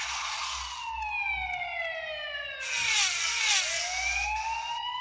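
A built-in sound effect from an EV-W250 mobile phone. A pitched electronic tone with several overtones slides slowly down over about three seconds and then climbs back up, and two bursts of hiss wash over it, one at the start and one in the middle.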